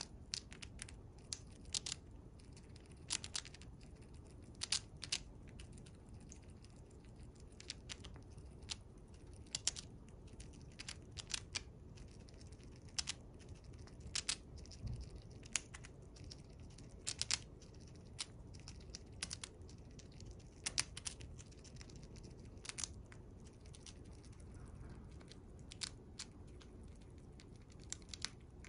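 Siberian chipmunk gnawing and chewing a slice of pumpkin held in its paws: sharp, irregular crunching clicks of its teeth, several a second in short runs with brief pauses between.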